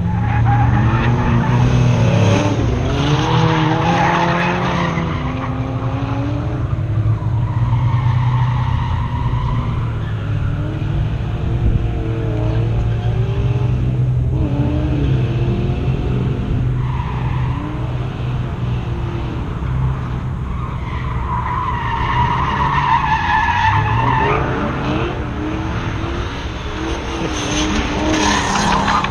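Mustang drift car's engine revving up and down repeatedly, with tires squealing as it drifts, the squeal loudest about eight seconds in and again near the end.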